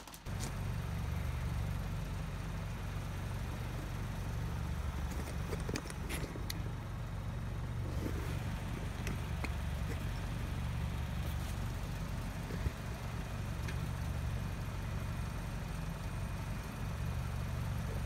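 A motor switches on just after the start and runs steadily with a low hum, with a few faint knocks over it.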